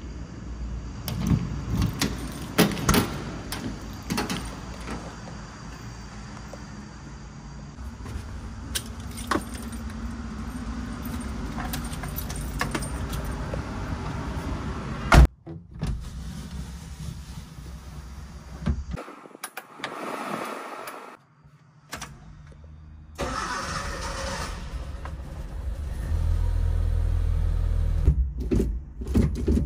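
Suzuki Super Carry van: a key rattling and turning in the door lock, clicks and knocks of the door being opened and someone getting in, and a door slamming shut about 15 s in. Near the end the ignition key is turned and the engine starts, running at a steady idle.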